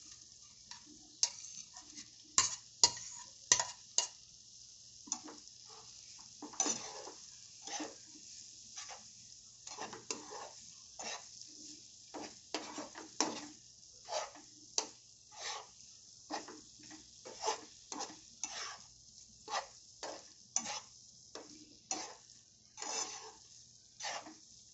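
Steel spatula stirring and scraping thick masala and boiled egg halves around a nonstick frying pan, about one stroke a second, over a faint steady sizzle. A few sharper knocks of the spatula against the pan come about two to four seconds in.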